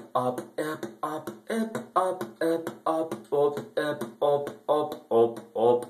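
Vocal beatboxing of a techno beat: an even pulse of about two beats a second, each beat a low kick sound with a pitched vocal tone and a hissing hi-hat sound on top.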